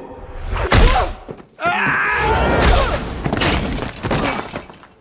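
Movie fight sound effects: a heavy hit about a second in, then a man groaning and grunting in pain over a low rumble.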